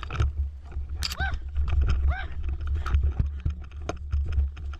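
Footsteps crunching through dry leaves and twigs on a woodland floor, a steady rhythm of small clicks over a low rumble. Three short rising-and-falling calls come about a second apart near the start.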